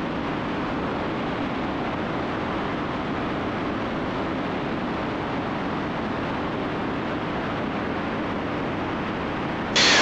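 Steady cabin drone of a Cessna T310R's twin engines and propellers in flight, an even rushing noise with no distinct beat, jumping suddenly louder near the end.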